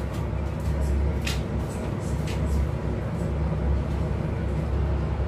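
Steady low hum of an induction cooktop running under a pot of simmering stew, with a few faint clicks and pops, the clearest about a second in.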